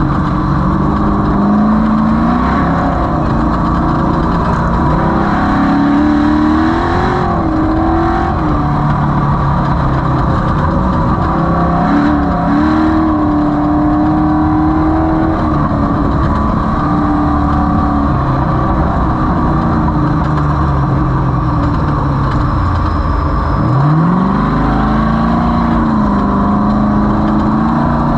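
Off-road race vehicle's engine running hard, its pitch rising and falling with the throttle. Near the end the pitch drops sharply, then climbs back up.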